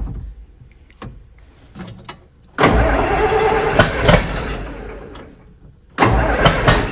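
John Deere 4440's diesel engine being started: a sharp click, then two loud spells of cranking and firing. The first begins about two and a half seconds in and dies away; the second begins near the end. The tractor's electrical and battery faults have just been repaired.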